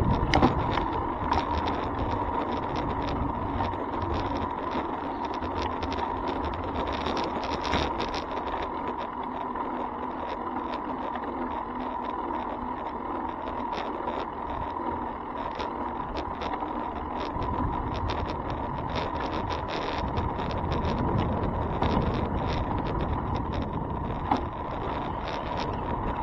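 Riding noise from a bicycle picked up by its handlebar-mounted camera: tyres rumbling on pavement and a dense run of small rattles and clicks from road vibration, over a steady thin whine.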